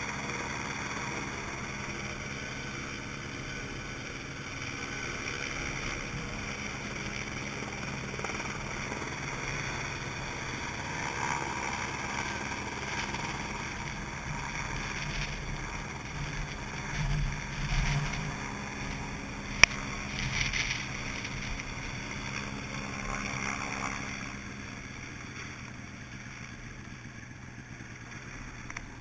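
Snowmobile engine idling steadily close by, with one sharp click about two-thirds of the way through; the engine sound drops in level for the last few seconds.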